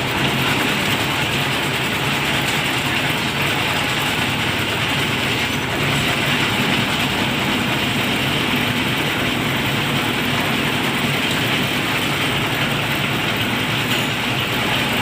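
Concrete mixer machine running steadily while mixing a batch of concrete, a continuous loud machine drone with no letup.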